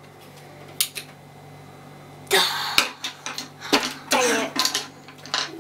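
A couple of light clicks, then children giggling in short breathy bursts from about two seconds in, the first burst sharp like a cough.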